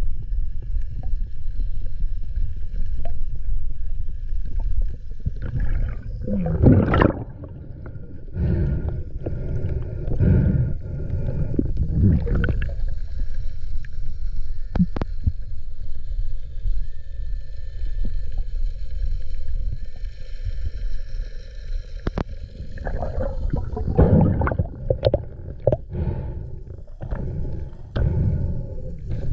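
Muffled underwater water noise: a low steady rumble with several louder rushing surges as a hand sweeps water across the sandy seabed. A faint steady high tone runs underneath.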